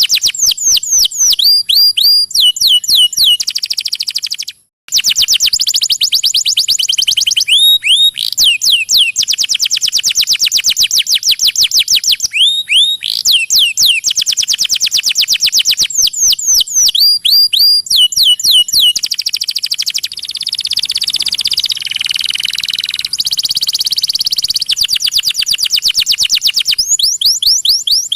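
Songbird song: fast trills of many repeated, sharply sweeping chirp notes, in phrases broken by short gaps, with a brief break about four and a half seconds in. After about twenty seconds it turns into a rougher, buzzier chatter before the quick trills return near the end.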